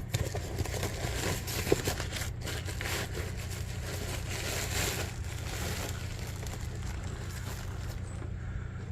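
Handling noise from a glass lantern globe being fitted: light clicks, scrapes and rustling over a steady low hum.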